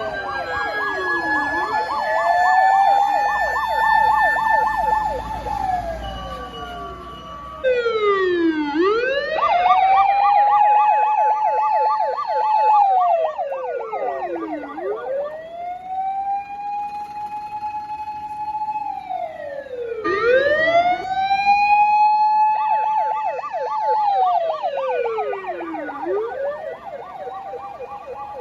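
Emergency vehicle's electronic siren sounding on a run: slow wail sweeps that rise, hold and fall every few seconds, with bursts of the rapid warbling yelp tone on the held top. Several sirens follow one another with sudden changes between them.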